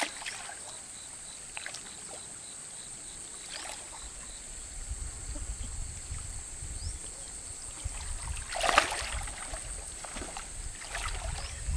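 Water splashing and knocking against a small boat in short scattered strokes, the loudest about nine seconds in. A steady faint high whine runs underneath, and a low rumble builds from about halfway through.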